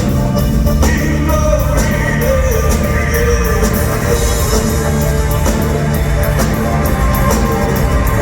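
Live band playing loud, amplified rock music with a sung vocal line over a heavy, steady low end.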